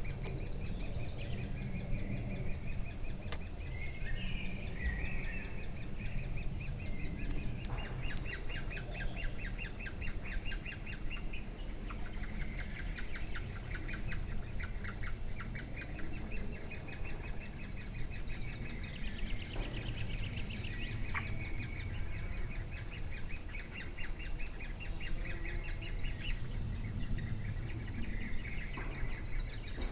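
Woodpecker nestlings begging: fast, high-pitched chirps repeated in rapid series that go on without a break. Other bird calls come in now and then.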